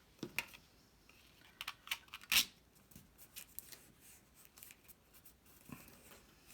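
Cardstock pieces being handled: scattered rustles and light taps of paper, with one sharper crinkle about two and a half seconds in.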